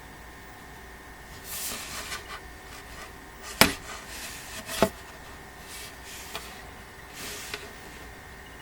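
Parts of a flat-pack printer stand being handled and fitted together: brief scraping rubs, and two sharp knocks about a second apart near the middle.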